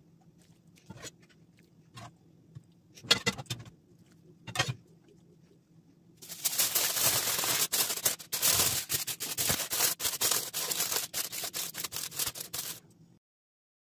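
A few short knocks, then about six seconds of loud crinkling and crackling of aluminium foil being handled and pressed over a baking dish. The crinkling stops abruptly near the end.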